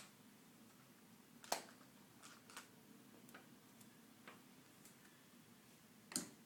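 A baby making short clicking and smacking sounds with her mouth. The clicks come irregularly, a few faint ones and two sharper ones, about a second and a half in and near the end.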